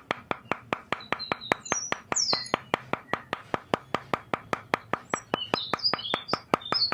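Steady, rapid, even clicking, about six clicks a second, with birds chirping now and then in the background.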